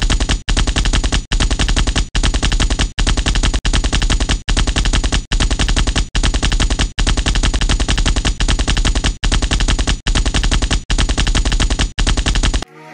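Automatic gunfire in short bursts of rapid shots, each about three-quarters of a second long, repeated with brief pauses between them. It stops abruptly near the end.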